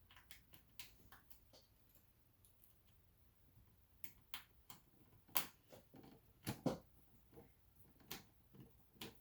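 Scattered light clicks and taps of plastic laptop screen parts being handled and fitted into place, with a few sharper knocks in the second half.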